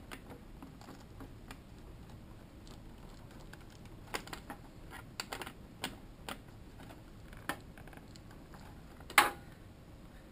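Scattered light metallic clicks and taps of a 10mm wrench tightening the ground-strap nut on a motorcycle ECU's ground lug, with one sharper clack about nine seconds in.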